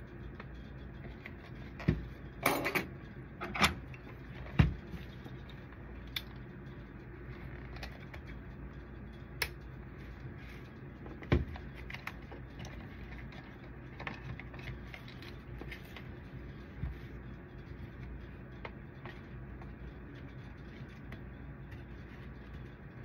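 Clicks, knocks and a brief rattle of a laser printer's plastic drum unit being handled and fitted together, the loudest in a cluster a few seconds in, then a few scattered clicks over a steady low hum.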